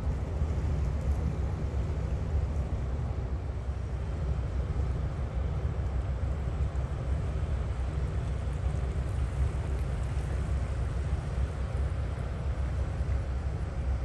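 Steady low rumble of a vessel's engines on the canal, with no clear changes.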